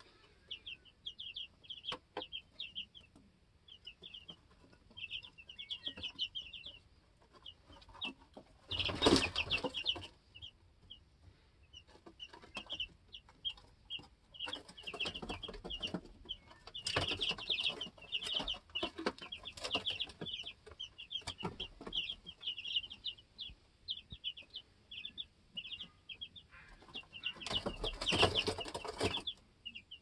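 Two-week-old baby chicks peeping continuously, many short high chirps overlapping. There are a few louder bursts of rustling, the loudest about nine seconds in and another near the end.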